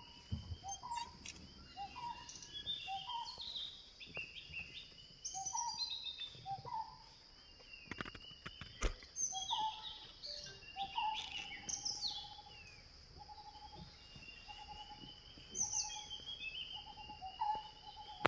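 Forest bird calls: one bird repeats a short note about every half second, while others chirp in higher, falling notes, over a steady high insect drone. There is one sharp click about halfway through.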